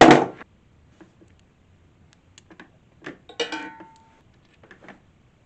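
Socket ratchet and small steel bolts clinking as oil pump cover bolts are taken out: a loud short clatter at the start, soft ticks, then a metal clink about three and a half seconds in that rings briefly.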